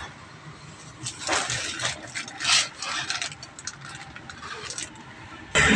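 Clear plastic packaging crinkling as it is handled, a string of irregular crackles. Near the end a much louder steady noise cuts in suddenly.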